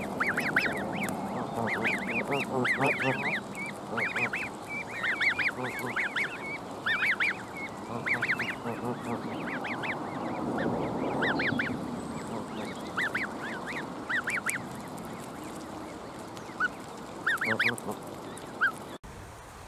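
Canada goose goslings peeping: quick runs of short, high chirps, dense at first and thinning out in the second half.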